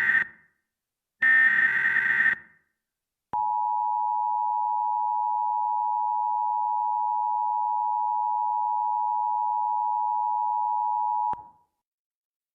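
Emergency Alert System SAME header data bursts: the tail of one and then a full one-second burst of shrill, buzzing digital tones. Then comes the EAS attention signal, a steady two-tone alert that holds for about eight seconds and cuts off sharply.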